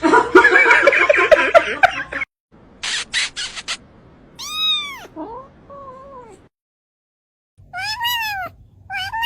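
Domestic cat meowing: one loud drawn-out meow about four and a half seconds in, two softer short ones after it, then three more meows near the end after a brief dead silence. The first two seconds hold a loud, rough, dense sound, followed by a few sharp clicks.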